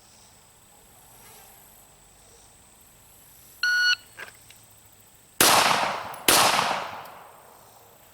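A shot-timer start beep, then two pistol shots from a 9mm Sig Sauer P320 X5 Legion, a little under a second apart, each ringing out as it fades.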